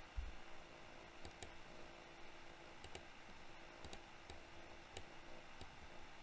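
Computer mouse clicking: a dozen or so scattered, separate clicks over a faint steady hum.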